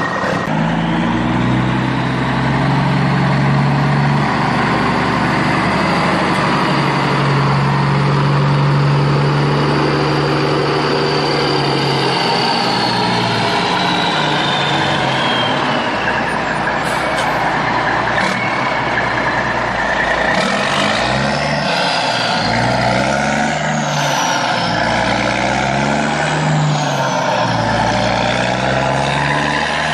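Sound effect of a heavy truck engine running, steady at first and then revving up and down repeatedly through the second half, with high falling whistle-like glides over it.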